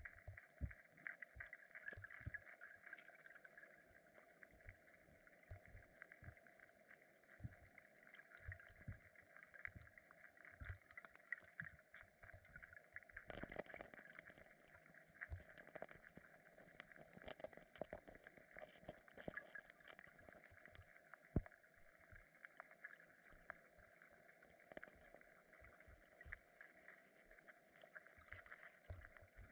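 Near silence: faint underwater ambience picked up through a submerged camera, a steady low hiss with scattered soft clicks and low knocks.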